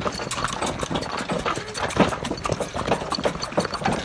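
Horse's hooves clip-clopping on the road as it pulls a cart, an uneven string of sharp knocks several times a second.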